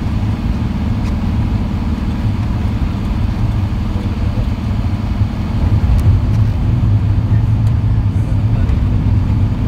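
Steady low rumble of a moving vehicle heard from inside its cabin: engine drone and tyre noise on the road, without change.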